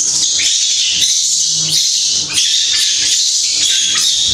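Baby macaque screaming in a long string of shrill, high-pitched cries with only short breaks, the distressed crying of a scared young monkey.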